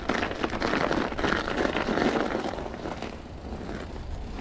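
Norco Optic mountain bike on Schwalbe Ice Spiker studded tyres rolling down a snowy, icy trail: a steady rolling noise full of small clicks and knocks from the tyres and the bike, louder for the first two and a half seconds, then easing off.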